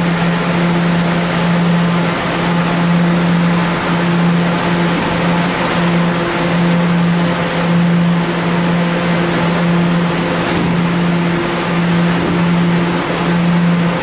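Kawasaki R211A subway car standing in the station with its doors open, its onboard equipment giving off a loud, steady electric hum over a rushing background noise.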